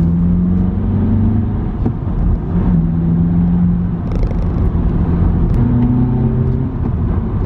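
VW Polo GTI's 1.8-litre turbocharged four-cylinder engine running at steady revs. Its pitch steps up about a second in, drops back near three seconds, and rises again near six seconds.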